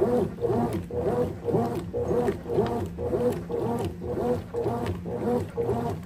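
Consul Maxi Economia 13 kg (CWE13) top-loading washing machine agitating a comforter: the agitator reverses about twice a second, the motor hum rising and falling with each stroke.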